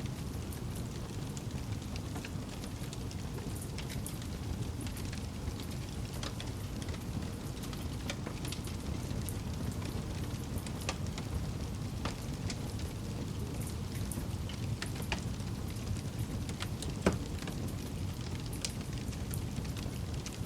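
Wood campfire burning: a steady low sound of the flames with irregular sharp crackles and pops, one louder pop about three quarters of the way through.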